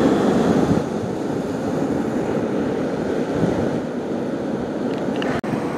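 Steady rushing of wind on the microphone mixed with surf. It drops out for an instant near the end.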